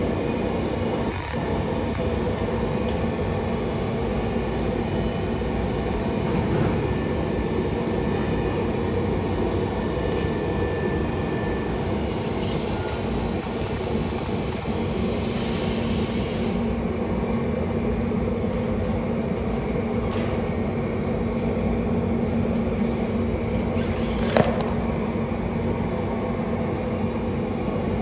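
Steady machine rumble with a low hum. The high hiss drops away a little past halfway, and a single sharp click comes a few seconds before the end.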